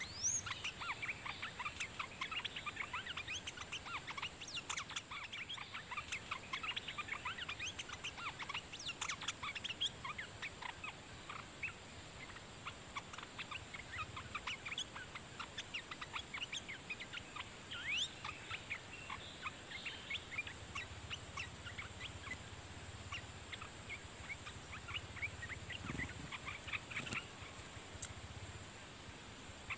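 Olive-winged bulbuls chattering: a fast run of short, sharp chirps, thinning out in the middle and picking up again near the end, over a steady high hiss.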